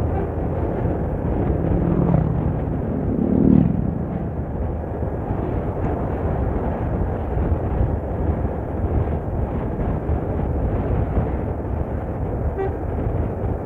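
Steady low rumble of road and wind noise from driving in traffic. An engine note rises in pitch from about one and a half to three and a half seconds in, and is loudest near its top.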